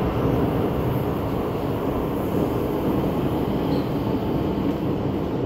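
Steady rumble of an MTR metro train in an underground station, easing off slightly toward the end.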